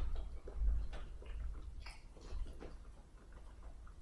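A person chewing and eating seafood boil close to the microphone, with scattered small clicks and mouth noises.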